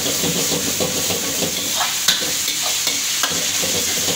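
Chicken with chilli paste, ketchup and soy sauce sizzling in a wok over a high gas flame while a metal ladle stirs and scrapes it. The ladle knocks sharply against the wok twice, about two and three seconds in.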